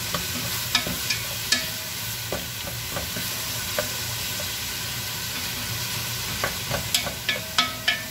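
Chopped onions and garlic sizzling in oil in a pot while a wooden spoon stirs them, the onions softening. The spoon knocks against the pot a few times about a second in and in a quick run of taps near the end.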